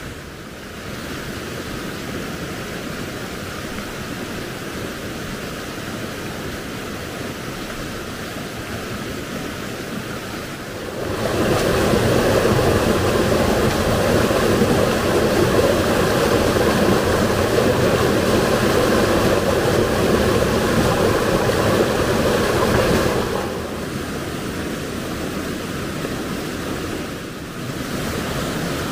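Rushing river water, a steady noise that gets louder about eleven seconds in and drops back down about twelve seconds later.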